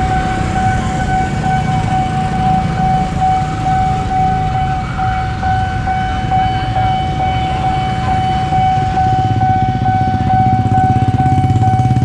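Railway level-crossing warning alarm sounding one steady high electronic tone over the low running of idling vehicle engines waiting at the closed barrier; the engine rumble grows louder near the end.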